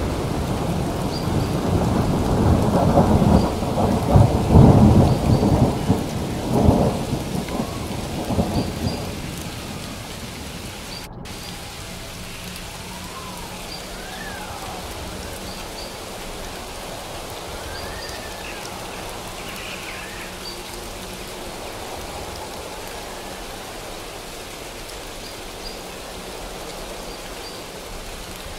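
Thunderstorm: thunder rumbling over steady rain, with the rumble dying away about nine seconds in and leaving the even hiss of rain.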